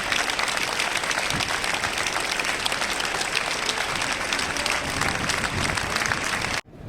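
Large crowd applauding steadily, a long dense ovation of many hands clapping, which cuts off abruptly near the end.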